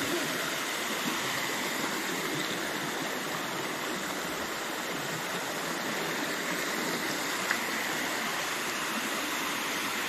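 Water rushing steadily down a rocky waterfall cascade, an even, unbroken hiss.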